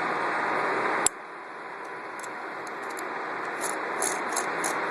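Light metallic clicks and taps of a screw and hand tools on the sewing machine's clamp mechanism as it is fitted, over a steady background hiss. The hiss drops after a sharp click about a second in, and a quick run of small clicks comes near the end.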